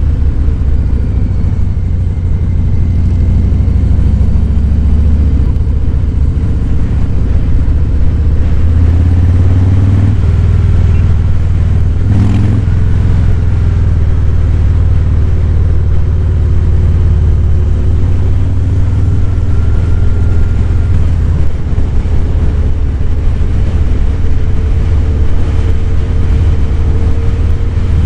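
Harley-Davidson Fat Boy 107's Milwaukee-Eight V-twin engine running steadily at road speed, a deep low exhaust note whose pitch drifts slightly with throttle. A brief click sounds about twelve seconds in.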